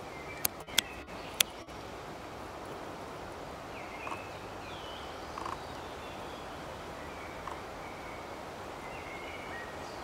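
Outdoor nature ambience: a steady hiss with a few faint, short bird chirps scattered through it, and three sharp clicks in the first second and a half.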